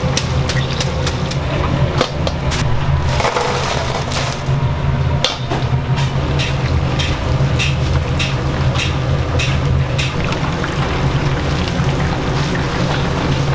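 Kitchen work in a fried-chicken shop: many short irregular clicks and knocks, some in quick runs of about three a second, over a steady low hum.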